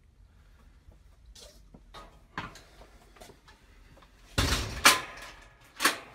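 Metal slatted storage-cage door rattling and banging: a few light knocks, then loud clattering bangs in the second half, twice.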